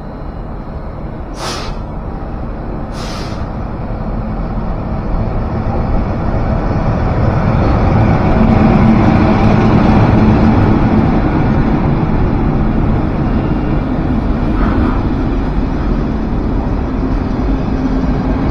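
Passenger train rolling past along the platform, its rumble of wheels and coaches building to a peak about nine seconds in and staying loud. Two short, sharp hisses sound near the start.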